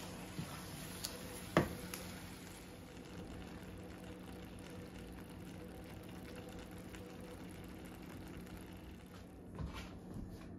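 Faint steady sizzle of ground beef and refried beans simmering in a stainless skillet, with one sharp knock of the spoon against the pan about a second and a half in and a few lighter clicks.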